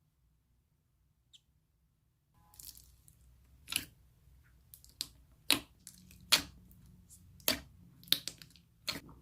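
Slime being squeezed and played with, giving a string of sharp pops and crackles at irregular intervals, roughly one a second, starting a couple of seconds in.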